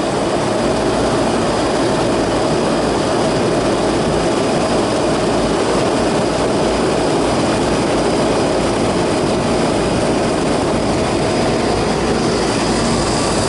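Ducane air conditioner's outdoor condensing unit running close up: a loud, steady rush of fan air with a hum and steady tones. Its condenser fan blade is bent and out of balance.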